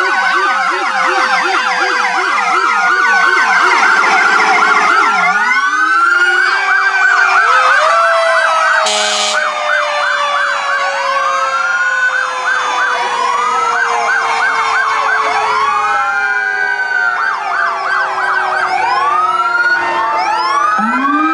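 Several fire-apparatus sirens sounding at once, overlapping wail and fast yelp tones. A low-pitched yelp runs through the first few seconds, and underneath a lower tone slowly falls, climbs sharply about eight seconds in and slowly falls again; a brief sharp blast cuts in about nine seconds in.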